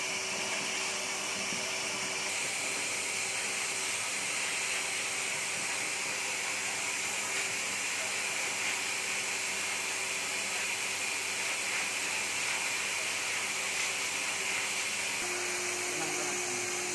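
Electric pet hair dryer blowing steadily, a continuous airy rush over a constant motor hum that steps up slightly in pitch near the end.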